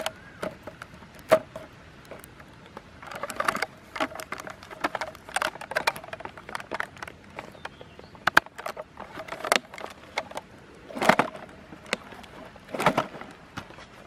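Hands handling a plastic drink bottle and thin bamboo sticks: scattered small clicks and taps with short rustling bursts, the loudest two near the end.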